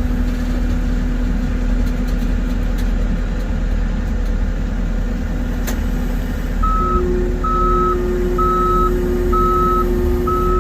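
Heavy truck's diesel engine running steadily, heard from inside the cab. About six and a half seconds in, a reversing alarm starts beeping about once a second, and a steady hum begins with it.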